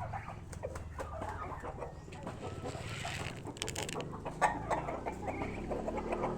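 Chickens clucking in short, scattered calls, with a few sharp clicks and a brief rustling burst a little past halfway, over a steady low hum.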